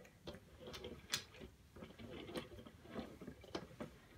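Faint, irregular ticks and clicks from a display turntable rotating slowly.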